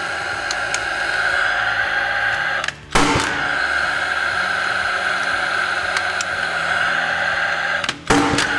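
Rawlplug R-SC40II gas nailer firing nails through pipe clips into concrete: a sharp shot about three seconds in and another near the end, each followed by a steady whir from the tool.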